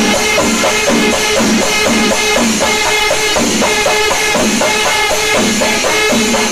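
Pandi melam, the Kerala temple percussion ensemble: dozens of chenda drums beaten with sticks, with ilathalam cymbals clashing and a kuzhal holding a reedy melody over them. The rhythm is loud and unbroken, with a pattern repeating about twice a second.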